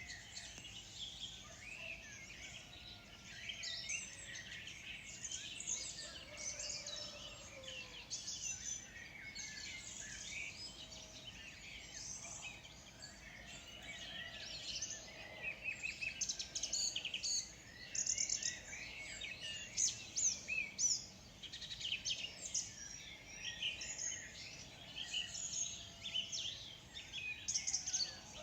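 Morning chorus of many birds chirping at once, the calls overlapping thickly and getting busier in the second half.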